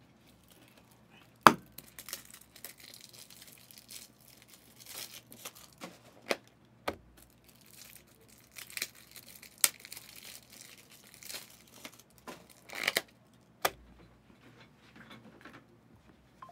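Plastic wrapping of a trading card box and its packs being torn open and crinkled, with crackling broken by sharp snaps, the loudest about a second and a half in.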